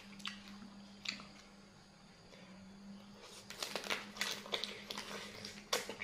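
Eating blue swimming crab: scattered clicks and crunches of crab shell and chewing, busiest about halfway through, over a steady low hum.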